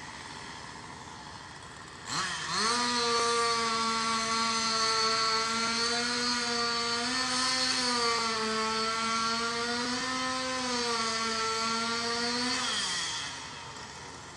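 Chainsaw revving up about two seconds in and held at high speed, its pitch rising and dipping slightly, then dropping back as the throttle is released near the end.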